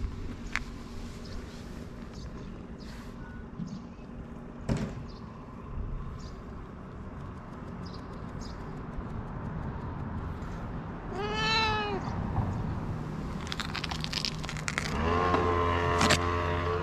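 A long-haired tabby cat meows once, a short call that rises and falls in pitch, about eleven seconds in. Near the end comes a louder, longer sound held at one pitch over a low hum.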